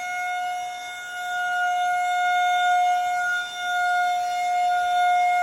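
Federal Signal 2001-130 rotating electromechanical warning siren sounding a steady single tone. The tone swells and fades as the rotating horn sweeps toward and away, dipping noticeably about three and a half seconds in.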